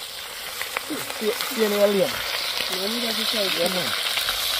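Fish frying in hot oil in a cast-iron pot, a steady bubbling sizzle. A low voice, without clear words, is heard briefly about a second in and again near the three-second mark.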